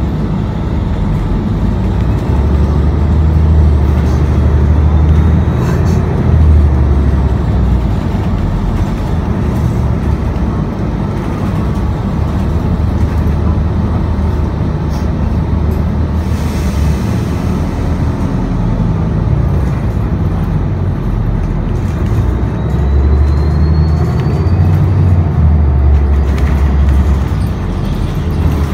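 New Flyer XDE40 diesel-electric hybrid bus heard from inside while under way: a steady low drivetrain rumble and road noise that swell and ease several times. A short hiss comes a little past halfway, and a faint rising whine follows near the end.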